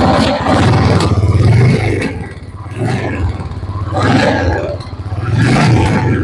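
Royal Enfield motorcycle engine revving through its exhaust, a rapid low beat that swells and eases a few times.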